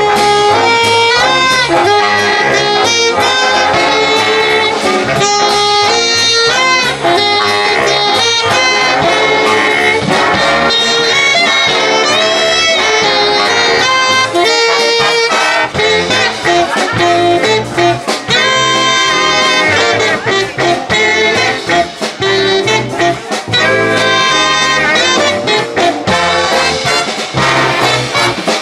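A live big band playing a jazz number: a saxophone section, trumpets and trombones over a rhythm section of piano, guitar, drums and double bass, amplified through PA speakers.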